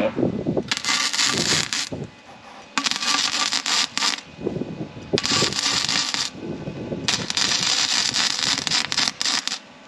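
Electric arc welder laying welds on scrap steel legs: four separate bursts of crackling hiss, each lasting one to two and a half seconds, with short pauses between them.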